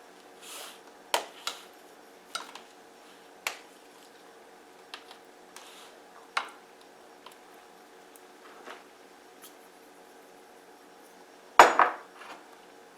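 Scattered clinks and knocks of kitchen dishes and utensils being handled while chicken is salted and peppered, with a few short shaking sounds in between. The loudest knock comes near the end.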